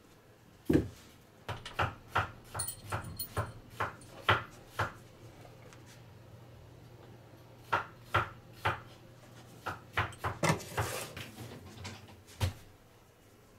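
Knocks and thumps of a carpet-covered wooden cat tower being taken apart and its boards handled. One loud thump about a second in, then two runs of quick wooden knocks, with a short rustling scrape near the end.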